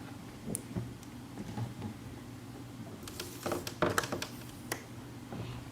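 A few light clicks and taps of small objects being handled, bunched together about three to five seconds in, over a low steady hum.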